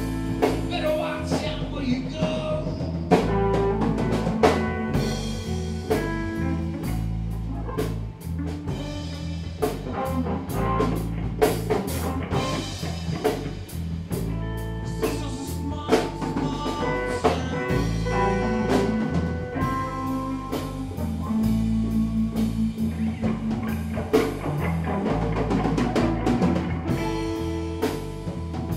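A live band playing an instrumental passage: electric guitars over a drum kit.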